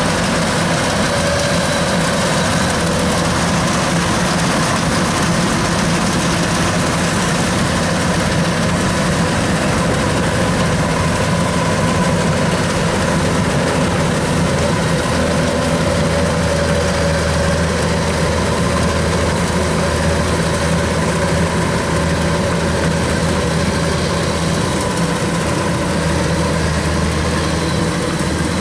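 Kubota DC93 rice combine harvester's diesel engine running steadily, a loud, even drone that holds at the same level throughout.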